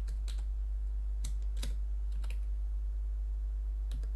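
Computer keyboard being typed on, with several irregularly spaced keystrokes as an email address is entered, over a steady low hum.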